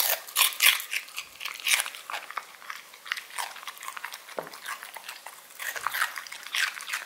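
English cocker spaniel crunching and chewing raw celery sticks: a run of irregular crisp crunches, thinning out in the middle and picking up again near the end.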